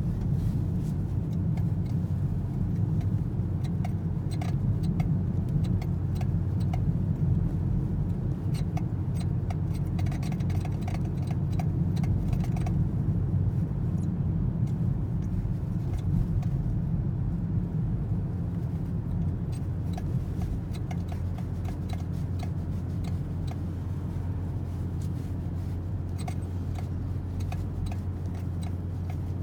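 Toyota C-HR heard from the cabin: a steady low car rumble, with short faint chirping squeaks from the steering scattered irregularly through it. This is the 'chu-chu' steering noise the owner is concerned about.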